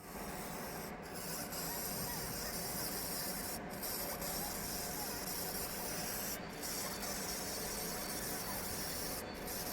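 60 W fiber laser deep-engraving aluminium: a steady high hissing sizzle from the beam ablating the metal, cutting out briefly about every three seconds between passes, over a steady low hum.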